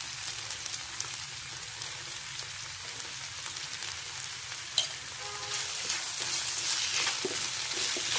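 Potato strips frying in coconut oil on high heat, a steady sizzle. There is a short tap just before the middle, then a wooden spatula starts stirring and scraping the pan toward the end, and the sizzle grows louder.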